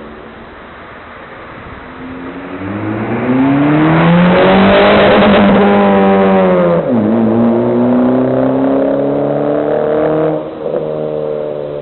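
Car with an aftermarket cat-back exhaust accelerating hard: the engine note climbs in pitch and grows loud, drops sharply about seven seconds in as it shifts up a gear, climbs again, then falls away as it lifts off near the end.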